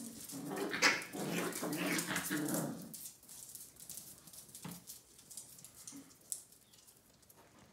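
Puppies play-fighting. One puppy gives a drawn-out, wavering vocal noise for about the first three seconds and a short yip near five seconds, over small clicks and scrabbles of paws on the floor.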